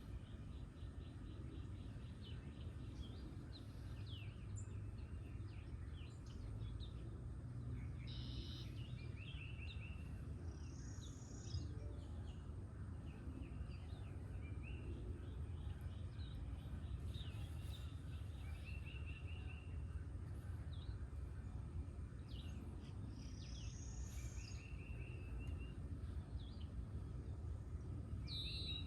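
Several songbirds singing: a short rapid trill comes back every few seconds, with higher slurred whistled notes between, over a steady low rumble.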